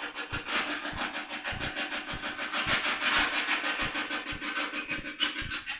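Spirit box, a radio that sweeps rapidly through frequencies, putting out a steady choppy static that stutters several times a second as it jumps from station to station.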